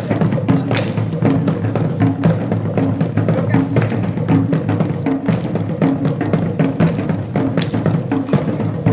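Drum music for the Takeye harvest dance of Niger: drums beating a fast, busy rhythm with low pitched drum notes, without pause.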